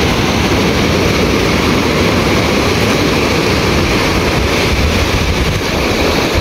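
Ocean surf breaking and washing over the shallows, a steady rushing noise, with wind rumbling on the microphone.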